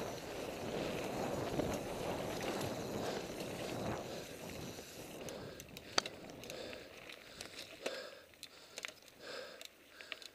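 Mountain bike descending a dirt trail at speed: wind rushing over the helmet microphone and tyre rumble. About five seconds in the rush drops away as the bike slows, leaving scattered clicks and rattles from the bike and the rider's short, heavy breaths.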